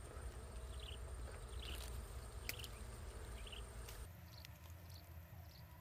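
Faint insect chirping outdoors: short, high chirps recur every half second or so over a low rumble, and the rumble drops away suddenly about four seconds in.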